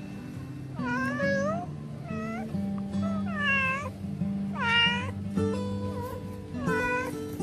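A domestic cat meowing repeatedly at a screen door, about five drawn-out meows that bend in pitch, calling to be let in. Background music plays underneath.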